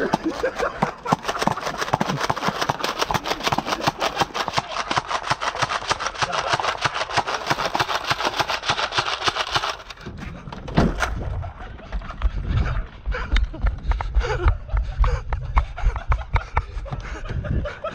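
Nerf Rival blasters firing rapid full-auto streams of foam rounds into a car for about ten seconds, stopping suddenly. After that come low rumbling and scattered knocks from people moving about.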